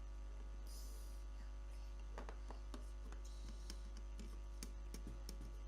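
Steady low mains hum with a few faint small clicks and a brief high hiss about a second in.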